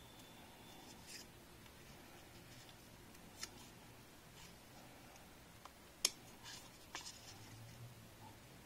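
Cardboard health dial being handled and put together by hand: faint rubbing of thick cardboard discs with a few small clicks, the sharpest about six seconds in.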